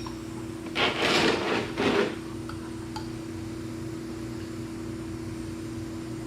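Tire-plug spiral reamer being forced and twisted into a puncture in a motorcycle tire: two harsh scraping strokes about a second in, over a steady low hum.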